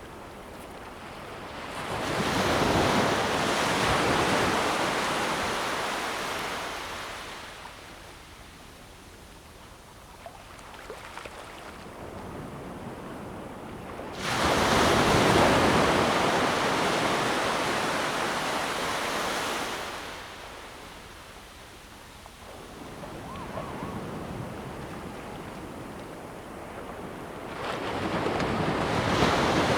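Sea waves breaking and washing up a beach, coming in slow surges several seconds apart; the loudest wave starts suddenly about halfway through and fades after several seconds.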